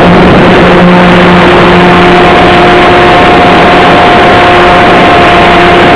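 RC model airplane's motor and propeller running steadily at high power with a constant pitch, picked up very loud by a camera mounted on the plane, together with a heavy rush of air.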